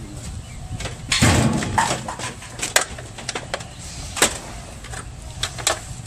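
Washing machine's control console being worked loose and lifted off the cabinet: a scraping rattle about a second in, then a run of clicks and knocks, with one sharper knock a little past four seconds.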